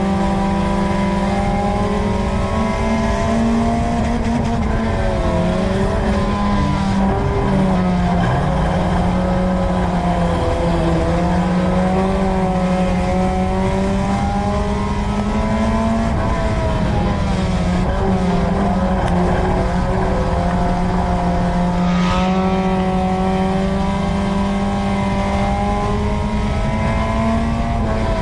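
Four-cylinder engine of a USRA Tuner dirt-track race car heard from inside the car, running hard at high revs. Its pitch dips and climbs back several times as the throttle is lifted and reapplied.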